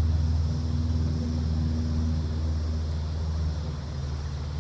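A small engine running steadily, a low hum that drops a little in level about three and a half seconds in.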